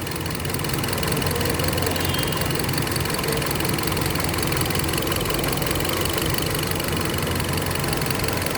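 Hyundai Accent petrol engine idling steadily under air-conditioning load, with a misfire that persists although the injectors and coils test good; the mechanic puts it down to air being drawn in at the intake manifold.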